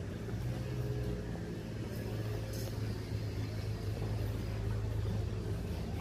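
A steady low mechanical hum under faint street ambience.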